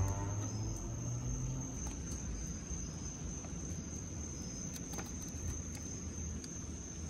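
Steady high-pitched cricket trill over a low, even hiss, with a low rumble fading out in the first two seconds and a few faint clicks about five seconds in.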